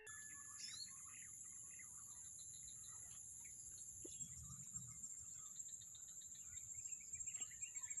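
Faint outdoor ambience: a steady high-pitched insect drone, with scattered faint bird chirps.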